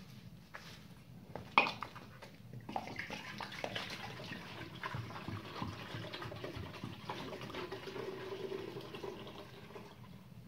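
Water poured from a clay jug into a metal kettle: a steady splashing pour that starts about three seconds in and stops near the end. A single sharp clink, the loudest sound, comes about a second and a half in.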